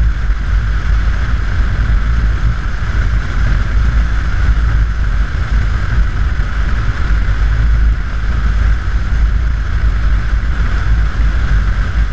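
Steady heavy wind noise buffeting the microphone of a Harley-Davidson Dyna Super Glide motorcycle cruising at highway speed. Underneath is a constant low rumble from the bike and road.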